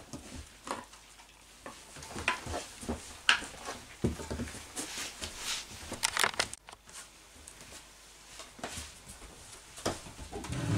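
Scattered light taps, ticks and rustles of a dog and a barefoot person moving about on a wooden plank floor.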